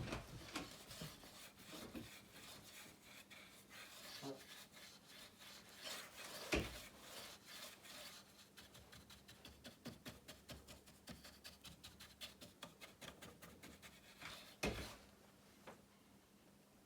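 Faint, quick, regular strokes of a brush rubbing clear hard wax oil into dry, weathered timber, with a couple of sharper knocks along the way.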